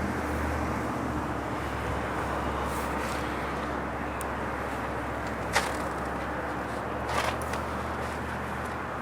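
Freight train hauled by GE diesel locomotives passing, with a steady low engine drone under a continuous rumble. There is a sharp click a little past halfway and a few more soon after.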